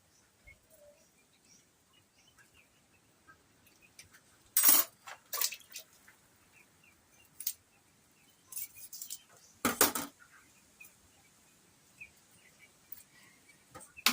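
A few sharp clinks and clatters, like pots or utensils being handled, the loudest two about five seconds apart, with faint bird chirps in the quiet between.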